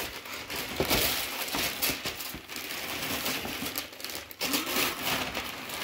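Wrapping paper rustling and crinkling with quick crackles as a present is opened.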